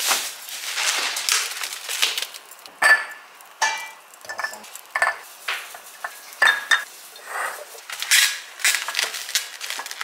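A plastic grocery bag rustling at first, then glass storage jars clinking and knocking: many short, sharp taps, some ringing briefly, as dried dates are put into a glass jar and the cork-ball lids are handled.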